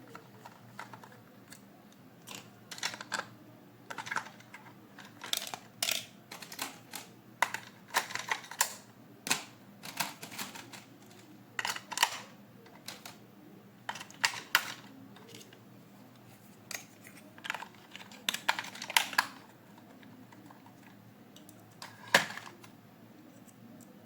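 Irregular clicks, taps and crinkles of plastic toy packaging and toy parts being handled, in uneven clusters with a sharp knock near the end.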